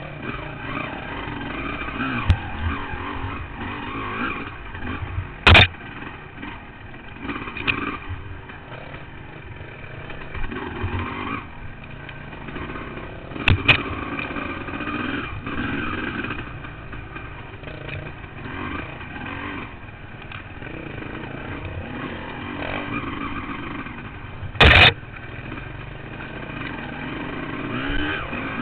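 Honda CR250 two-stroke dirt bike engine revving up and down under throttle, heard close up from a helmet camera. Three short, loud knocks stand out, about five, thirteen and twenty-five seconds in.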